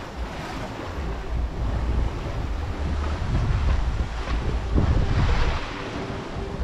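Wind buffeting the microphone in uneven gusts, with sea water rushing and washing past the hull of a sailboat under sail; the wash swells about five seconds in.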